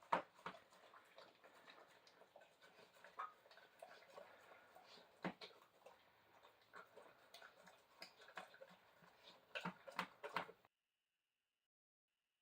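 Faint, scattered clicks and smacks of a Great Dane eating a piece of pizza, with a short cluster just before the sound cuts to dead silence about ten and a half seconds in.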